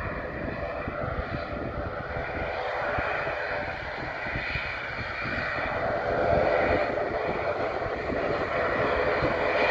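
ATR 72-600's twin Pratt & Whitney PW127 turboprop engines and propellers running steadily as the airliner rolls out along the runway after landing. The drone grows louder about six seconds in and again near the end as the aircraft comes closer. Wind buffets the phone microphone.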